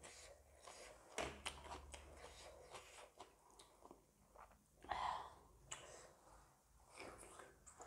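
Close-up chewing and mouth sounds of someone eating spicy noodles and momos: soft wet smacks and clicks, with louder bursts about a second in and about five seconds in.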